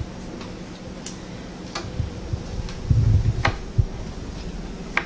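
Hand screwdriver tightening a screw into a kitchen cabinet handle: a few scattered light clicks, with a dull bump about three seconds in.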